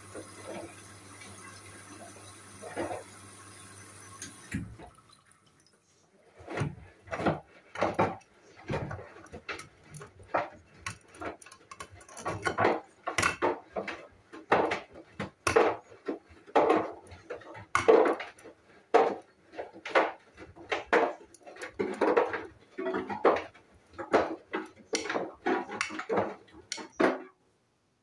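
Hoover front-loading washing machine at the start of a cycle: a steady water-fill hum and hiss stops about four seconds in. Then the drum turns and the wet laundry and water slosh inside it, in uneven surges about once a second.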